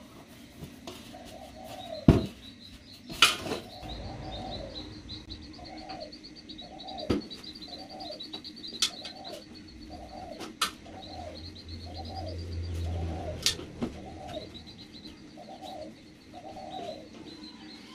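Birds calling: a short low call repeated over and over, roughly once a second, with runs of fast high chirping. A few sharp knocks cut in, the loudest about two and three seconds in.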